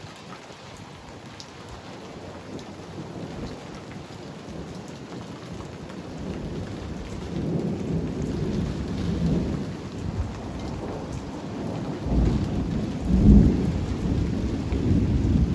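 Thunderstorm: steady rain with low rumbles of thunder building from about six seconds in, loudest near the end.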